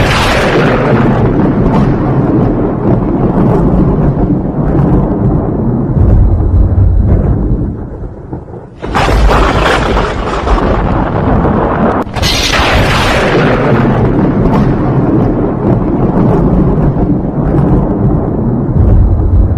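Loud, deep rumbling booms like thunder or explosions, with sudden crashing hits about nine and twelve seconds in: a dramatic sound-effect intro.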